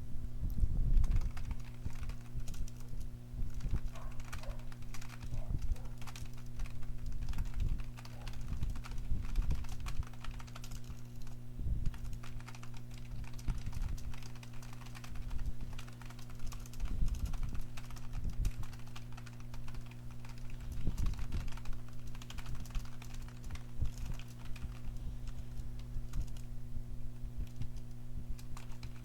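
Computer keyboard keys clacking in continuous, quick, irregular typing, with a steady low electrical hum underneath.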